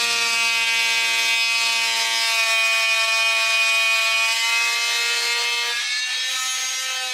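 Oscillating multi-tool cutting into a caravan's plywood wall panel: a steady buzzing whine whose pitch wavers with the load and shifts slightly near the end.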